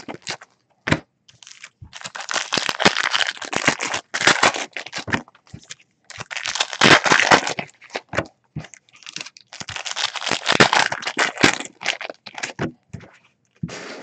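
Plastic foil wrapping on trading-card packs being torn open and crinkled by hand, in several bursts of a second or two with short crackles between.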